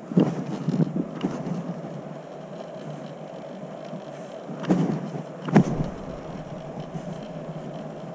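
Scooter rolling along a paved path, heard from a camera on the rider: a steady rolling hum with a few sharp knocks and bumps near the start and another pair about five seconds in.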